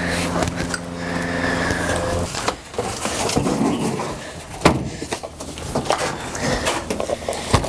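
An engine running steadily, cutting off about two seconds in. Then irregular clattering and knocking of loose gear being handled, with one sharp knock about halfway through.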